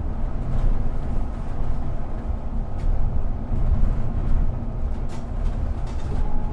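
Steady low rumble of a city bus in motion, heard from inside, with a few short rattles and clicks about three seconds in and again near the end.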